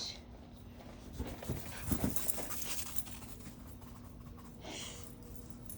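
Australian cattle dog (blue heeler) panting, with a couple of dull thuds about one and two seconds in.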